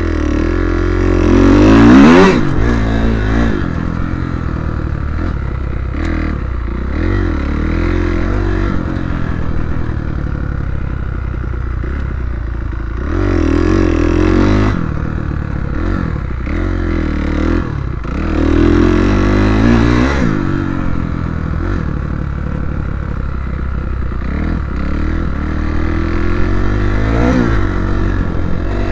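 Kawasaki KX250F four-stroke single-cylinder motocross bike heard from onboard, the engine revving up hard about two seconds in, again around fourteen and twenty seconds, and near the end, and easing off in between, with its pitch rising and falling with the throttle. The chassis clatters over the rough dirt.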